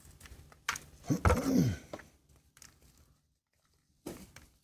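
Crackling and scraping of a small plastic nursery pot being squeezed and potting soil being worked loose from a seedling's roots by hand. About a second in, a brief pitched, voice-like sound rises and then falls.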